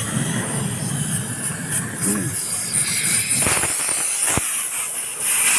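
Compressed air hissing steadily as it is blown through a clogged car silencer to clear it, with two sharp knocks midway; the hiss grows louder near the end.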